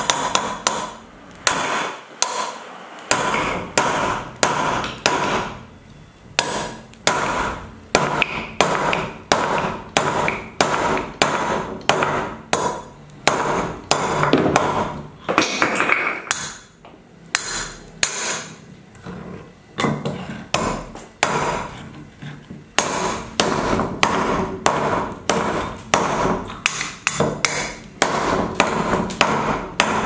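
Hammer blows striking repeatedly, about two to three a second, in runs broken by short pauses.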